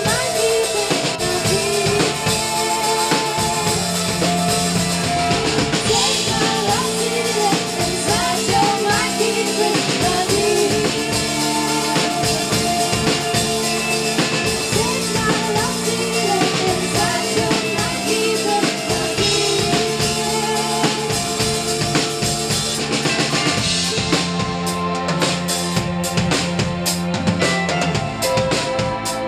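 A live band playing: electric guitar, bass guitar and drum kit, with singing voices over them. Near the end the drums come more to the fore.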